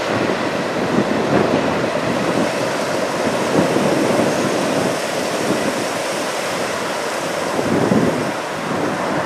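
Strong wind buffeting the microphone in uneven gusts, over the faint rolling of a double-stack container freight train's cars passing at a distance.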